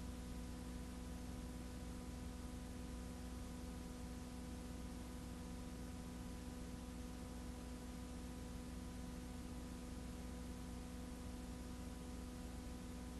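Steady hum with several fixed tones over an even hiss, and nothing else: the noise floor of a recording without any sound of its own.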